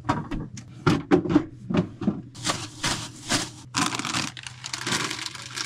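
A quick run of light clicks and knocks, then about three seconds of dense rustling and crinkling as things are handled, over a faint steady low hum.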